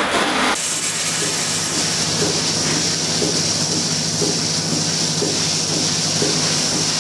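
Background music with a tambourine ends about half a second in. Then a Lely Astronaut milking robot runs with a steady hiss over a low hum, with faint soft ticks repeating through it.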